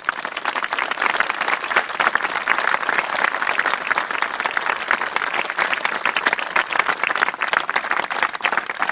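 Audience applauding: many hands clapping together, swelling up in the first second and then holding steady.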